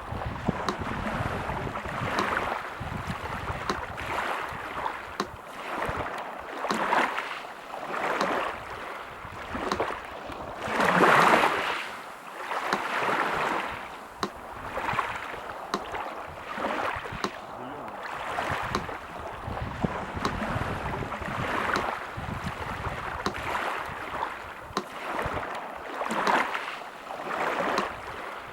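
Sea surf washing in, waves swelling and falling back every second or two, with one larger wave about eleven seconds in. A metronome ticks steadily and evenly under the surf.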